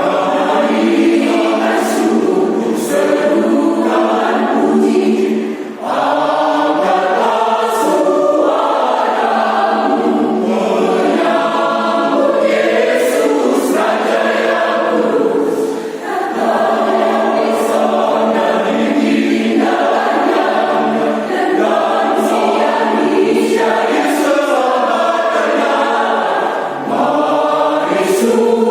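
Adult mixed choir singing a cappella in several parts, with short breaks for breath about six seconds in and again near the middle.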